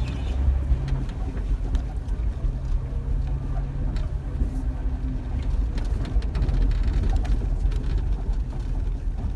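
Jeep Wrangler driving over a rough, dipping dirt trail: a steady low engine and road rumble with scattered knocks and rattles as it goes over the bumps.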